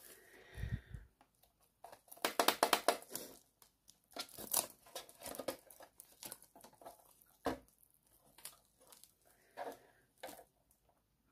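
Clear plastic film wrapped around a handheld UV curing lamp crinkling as the lamp is handled and moved, in uneven spells of crackles, the loudest about two to three seconds in and again about four and a half seconds in.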